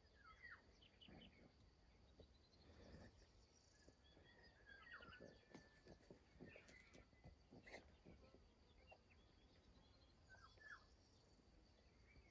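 Near silence: faint outdoor ambience with scattered small bird chirps, a faint steady high insect trill, and soft little clicks.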